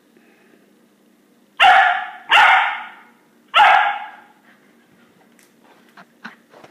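Puppy barking three times, sharp and loud, with about a second between the first two and the third. A few light clicks follow near the end as it steps onto the hard floor.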